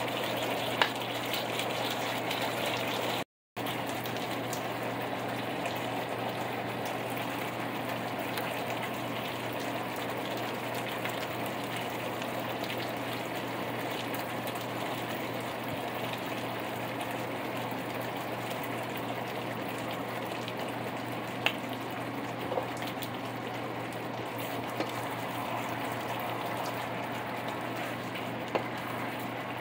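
Chicken pieces sizzling and bubbling in sauce in a frying pan, a steady hiss throughout, with a few light knocks of a wooden spatula against the pan. The sound cuts out completely for a moment about three seconds in.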